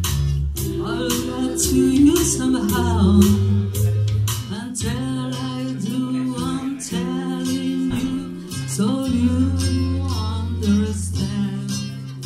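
Women singing a slow song into microphones over an acoustic guitar accompaniment with a steady strum.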